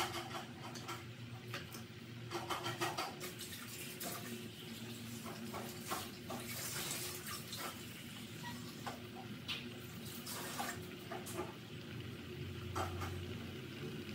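Pot of coconut-based fish curry heating towards a simmer, its surface popping and crackling in irregular small clicks, over a low steady hum.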